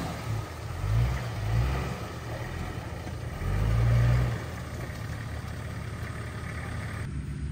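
An off-road 4x4's engine revving in short surges, the strongest about three and a half seconds in, then running steadily.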